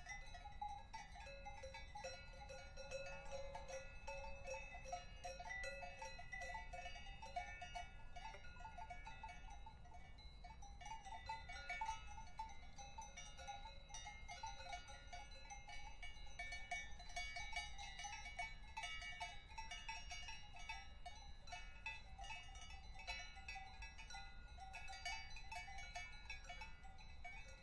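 Several cowbells worn by cattle clanking and ringing irregularly and continuously, their tones overlapping one another.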